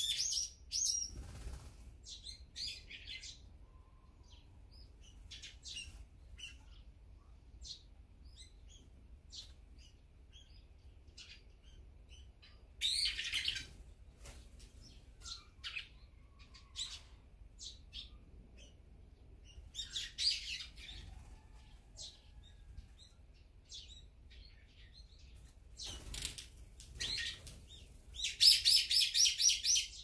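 Small wild birds calling: scattered short high chirps throughout, with loud bursts of rapid calls about a third and about two-thirds of the way in, and a longer, louder run of rapid calls near the end.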